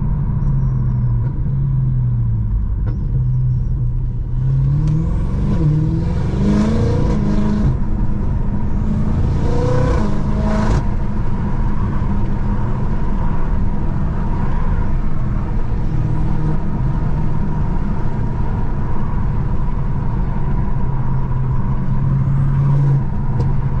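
Stage 2 tuned BMW M5 F90 twin-turbo V8 engine cruising steadily, then accelerating twice, about five and nine seconds in, with its pitch rising on each pull before it settles back to a steady cruise.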